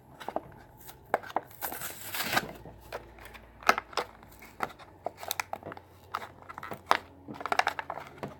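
Plastic blister pack and cardboard card of a Hot Wheels car crinkling and crackling as they are handled and torn open, in many short irregular crackles with a longer tearing rip about two seconds in.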